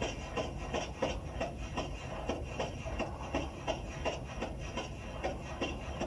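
Rapid shots from a 3D-printed FGC-9 9mm carbine, played back over room speakers. The shots come evenly at about three a second.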